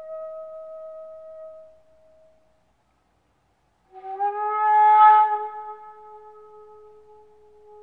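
Background music: a wind instrument playing slow, long held notes. One note fades out about two seconds in, and after a short pause a lower note swells in and slowly dies away.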